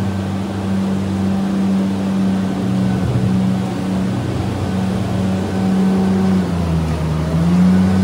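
Compact articulated loader's engine running steadily as it pushes a rubber scraper blade through manure slurry on a concrete barn alley. The engine note dips and comes back up near the end.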